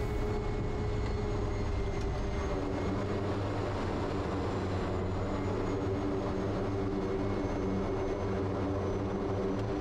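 Quest Kodiak's PT6A turboprop engine and propeller running steadily at low power while the aircraft taxis: an even drone with a thin, high turbine whine above it.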